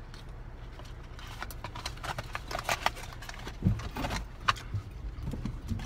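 Steady low rumble of a car engine heard inside the cabin. Over it, from about a second and a half in, comes a run of small clicks and rustles from handling and chewing fast-food sandwiches, with two louder knocks near the middle.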